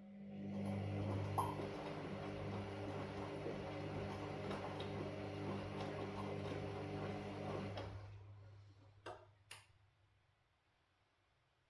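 Washing machine motor turning the drum for about eight seconds, a steady hum with light clicking and rattling, then winding down to a stop: one burst of the drum's stop-start tumbling during a wash cycle. Two sharp clicks follow near the end.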